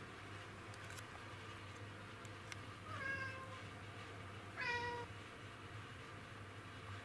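Black cat giving two short meows about a second and a half apart, the second louder, while in hunting mode over an insect it wants to catch.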